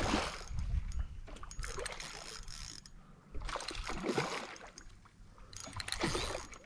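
A hooked barramundi thrashing at the water surface, splashing in bursts every second or two, with a few light clicks between.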